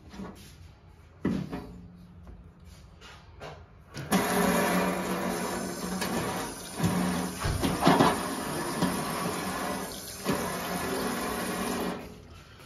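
Water running from a kitchen tap, a steady rushing noise that starts suddenly about four seconds in and stops near the end.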